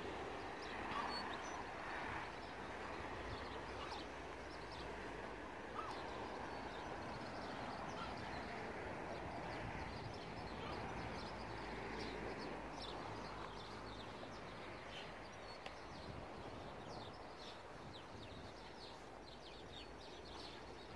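Outdoor ambience: a steady background hiss with small birds chirping, short high calls that come more often in the second half.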